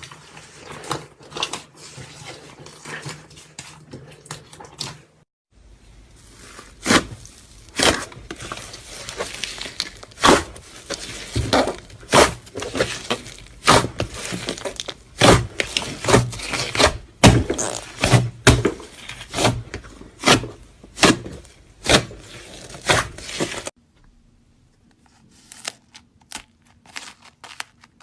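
Slime being squeezed and pressed by hand, giving quick runs of sticky pops and crackles, several a second. It breaks off suddenly twice, and the last stretch is fainter.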